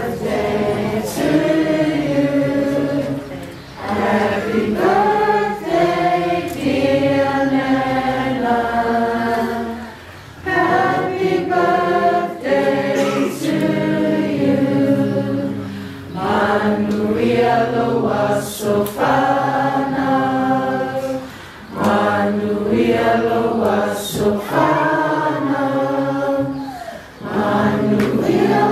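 A group of people singing together unaccompanied, in long held phrases with brief breaks for breath about every five or six seconds.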